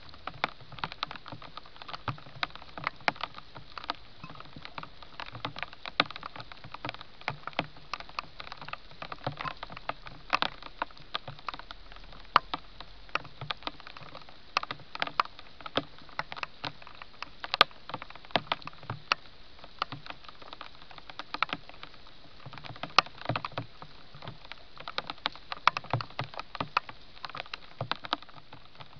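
Hedgehog feeding: irregular crackling and clicking of chewing and rustling, several a second, over a steady hiss.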